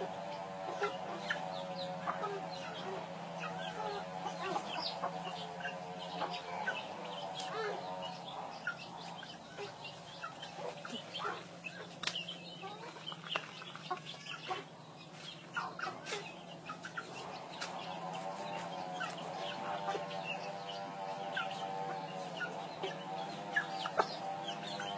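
Domestic chickens clucking, with many short high calls scattered throughout. A wavering tone sounds in the background near the start and again in the last several seconds.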